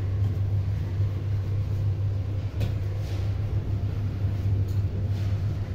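A steady low rumble, with a few faint light clinks of a steel spoon and aluminium pot lid being handled on the stove.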